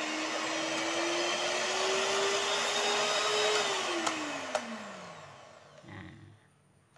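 Miyako electric hand mixer running with its wire whisk beaters spinning in the air, the motor's whine rising slowly in pitch. About three and a half seconds in it is switched off: the whine slides down and fades as the motor winds down, with a couple of clicks.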